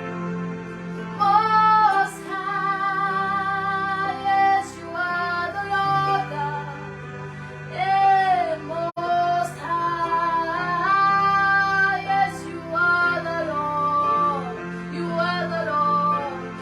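A woman's voice singing a wordless, melismatic worship melody with vibrato on long held notes, over steady sustained accompaniment chords.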